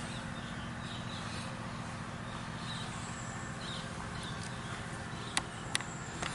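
A steady low mechanical hum with faint, short high chirps over it. Two sharp clicks close together a little after five seconds in, and a fainter one near the end.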